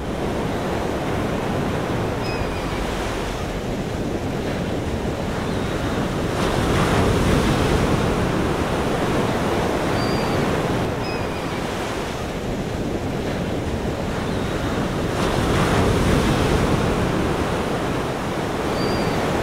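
Sea waves surging and breaking on a shore, with wind. The surf swells louder about a third of the way in and again near three-quarters through, and a few faint short high chirps sit above it.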